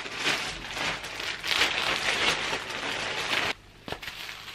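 Plastic packaging rustling and crinkling as a wig is pulled out of its bag. The rustling stops suddenly near the end, leaving a couple of faint clicks.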